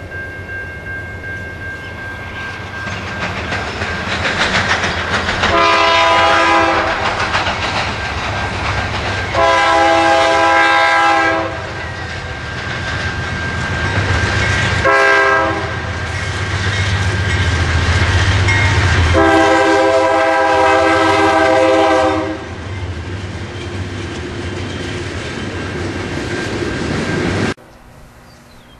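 BNSF GE diesel locomotive sounding its multi-chime air horn in the grade-crossing pattern (long, long, short, long) over the rumble of its engine and wheels clattering on the rails. The sound drops off abruptly near the end.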